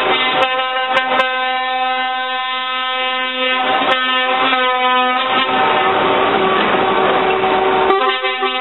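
Truck air horns sounding in long, steady held chords as a convoy of trucks passes. About five seconds in, a rough rush of engine and road noise from a passing truck rises under the horns for a couple of seconds.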